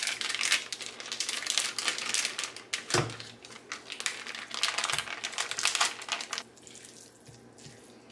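Plastic wrapper of a package of ground chuck crinkling and tearing as the meat is squeezed out, with a single thud about three seconds in as the block drops into a frying pan. The crinkling stops after about six seconds, leaving a few soft knocks.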